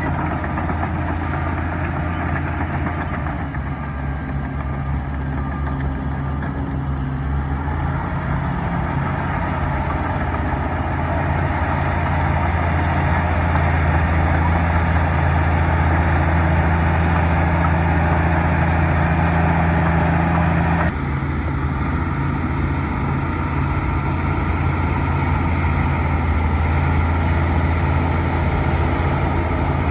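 Bulldozer's diesel engine running steadily at working speed, its note rising and strengthening about eight seconds in. The sound changes abruptly about two-thirds of the way through, as at a cut, then the engine carries on.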